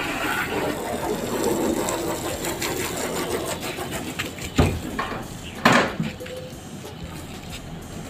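Water spraying from a garden hose onto a car's body, a steady hiss and patter that stops about four seconds in, followed by two loud knocks about a second apart.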